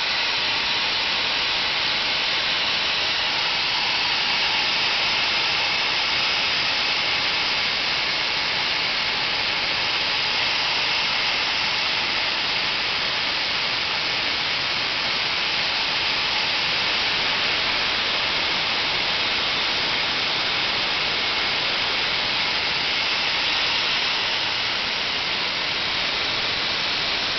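DIY gas turbine built from a turbocharger running steadily: a loud, even jet rush from its exhaust with a faint high whine underneath.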